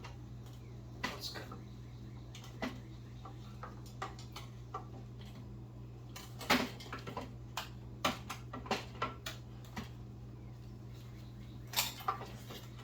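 Irregular metal clunks, knocks and scrapes as the 1991 Honda CR250's two-stroke engine is wiggled out of its frame, with a busier run of knocks in the middle, over a steady low hum.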